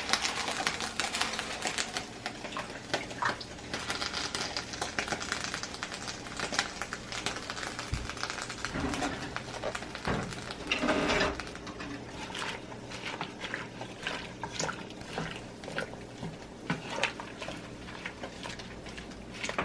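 A bunch of amaranth greens being worked down into a pot of boiling water: a steady run of small crackles and clicks over the water, with a louder clatter about ten seconds in.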